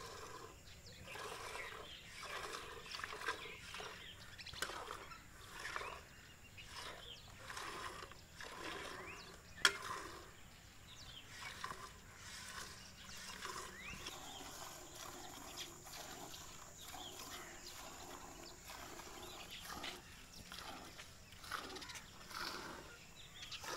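Hand-milking into a steel pail: jets of milk squirting into the bucket, about two squirts a second, with a single sharp click about ten seconds in.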